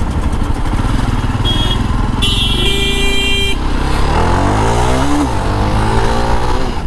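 Jawa Perak motorcycle's single-cylinder engine running, with a vehicle horn honking twice early on, first briefly and then for about a second. The engine then revs up as the bike pulls away, falls at a gear change, and climbs again.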